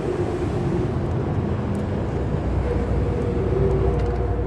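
Steady low background rumble, like engine or traffic noise, with a faint steady hum that comes in about two-thirds of the way through.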